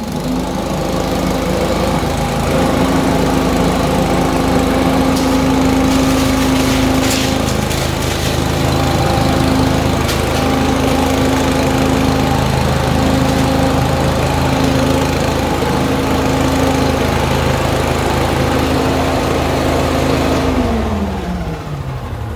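Sherpa STWV58L wheeled leaf vacuum's four-stroke petrol engine and fan running at full throttle while it sucks scraps of brown paper off a concrete floor, with a few brief crackles. The engine speeds up at the start, runs steadily, then winds down near the end.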